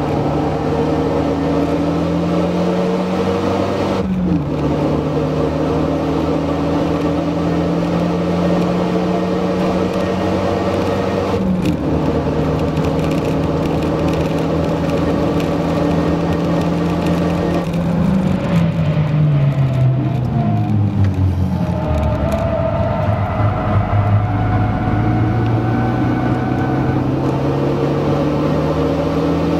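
Renault Mégane RS 250's turbocharged 2.0-litre four-cylinder engine heard from inside the cabin under hard acceleration, its pitch climbing through the gears with upshifts about four and twelve seconds in. Around eighteen seconds the revs fall in several steps as it downshifts under braking, then climb again as it accelerates away.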